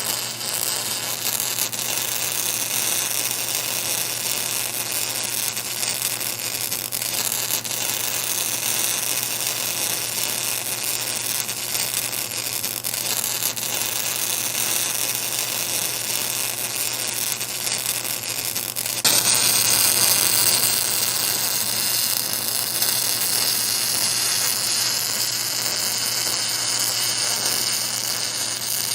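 Welding arc buzzing and hissing steadily as the hot pass is laid over the root weld of a flange-to-pipe joint. About two-thirds of the way through it gets louder and brighter.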